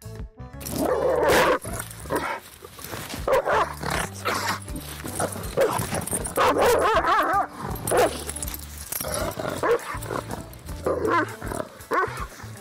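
A dog giving a series of short, wavering vocal calls, over background music.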